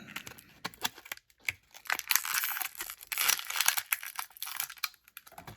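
Thin plastic blister packaging crinkling and crackling as a toy figure is pulled out of it. Many small clicks run throughout, and the crinkling is densest in the middle stretch.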